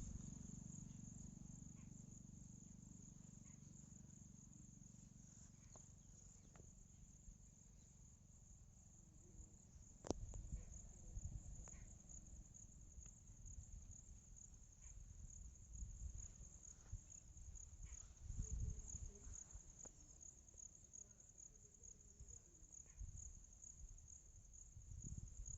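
Crickets trilling steadily in a continuous high-pitched pulsing chorus, over a fluctuating low rumble, with a sharp click about ten seconds in.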